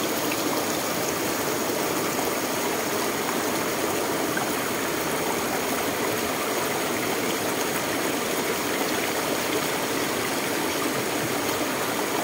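River water rushing and flowing steadily, an even, unbroken rush of moving water.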